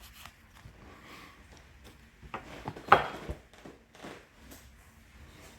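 Light handling noises with a cluster of knocks about two and a half seconds in, the loudest a sharp clack; the steady sanding strokes have stopped.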